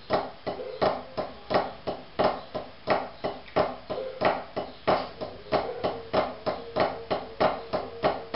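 Wooden drumsticks tapping a drum practice pad in a repeated sixteenth-note figure, strokes two and two, with an accented flam leading each group. The louder accents recur about every two-thirds of a second over a steady run of lighter taps.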